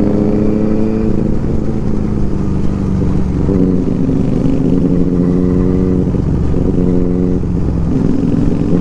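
Motorcycle engine running steadily while riding, its note shifting a couple of times, about 3 seconds in and again near the end, over a low rumble.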